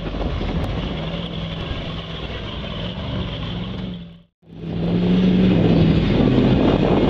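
Engines of lifted Chevy 4x4 trucks revving as their tires spin and churn through deep mud. The sound drops out briefly about four seconds in, and a second truck follows, louder.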